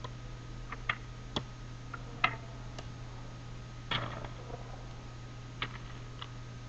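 Go stones clicking as they are set down on the board and picked out of their bowls: about a dozen short, sharp clicks at irregular spacing, the loudest about four seconds in, over a steady low hum.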